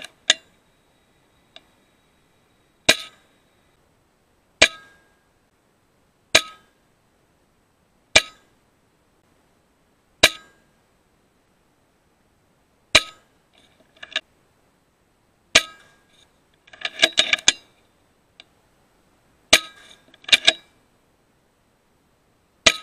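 Pre-charged pneumatic .22 air rifle (FX Impact M3) firing shot after shot, about ten sharp cracks spaced a second or two apart, most followed by a short metallic ringing. Near the middle and again a little later come quick rattling clusters of clicks.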